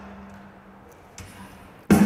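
Snare drum struck during soundcheck and heard through the d&b line-array PA in a large empty hall: the ring of the previous stroke dies away, a soft stroke comes about a second in, and a loud one near the end. Each stroke has a pitched ring and a long hall decay. The engineer is checking the snare's tuning and finds it a little too high.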